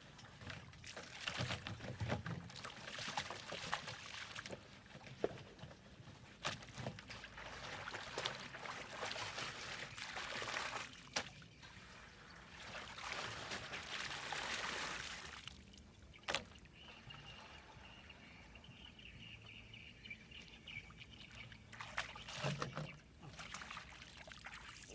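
Water sloshing and splashing in irregular surges, with a few sharp knocks.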